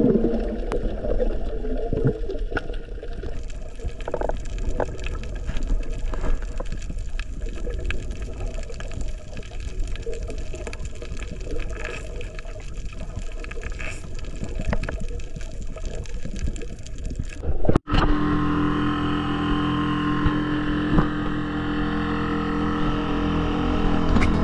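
Underwater reef ambience: a dense crackle of small clicks over a wash of water noise. About three quarters of the way in it cuts off suddenly and gives way to a small boat's outboard motor running steadily under way, with water rushing past the hull.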